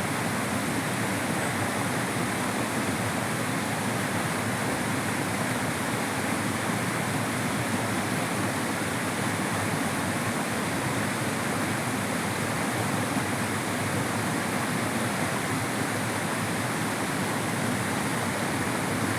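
Mountain stream running steadily, an even rush of water over rocks.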